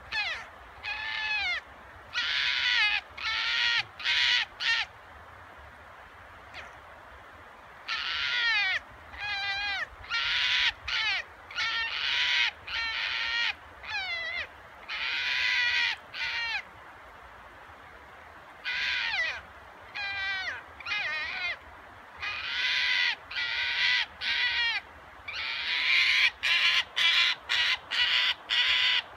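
Ezo red fox (kita-kitsune) giving a rare roar: repeated rough, pitched calls about half a second to a second long, in bouts of several with pauses between. A quicker run of short calls comes near the end.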